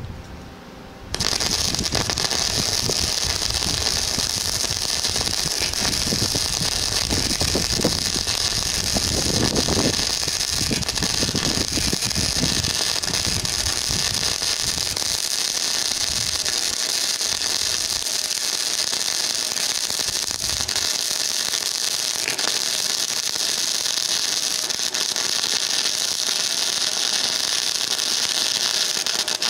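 Flux-core wire welding arc from a Harbor Freight 90 amp welder converted to DC output, laying a bead at wire feed speed 5. The arc strikes about a second in and then crackles and sizzles steadily, with no breaks.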